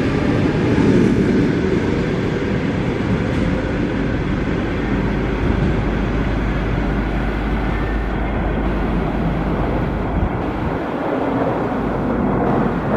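EP2D electric multiple unit pulling away from the platform: a steady rumble of wheels on rail, with the traction motors' whine fading out within the first second.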